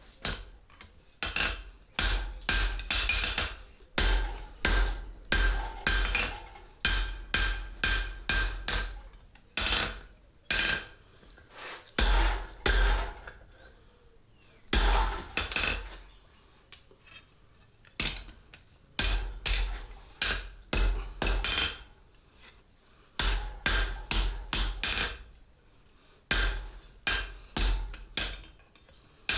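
Hand hammer striking hot flat-bar steel on an anvil while forging split-bar tongs: runs of quick blows, about two to three a second, broken by short pauses, with a faint metallic ring from the anvil.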